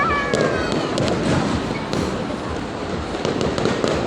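Fireworks display bursting and crackling in rapid succession, many sharp pops over a dense crackle, with crowd voices underneath and a brief whistling tone at the very start.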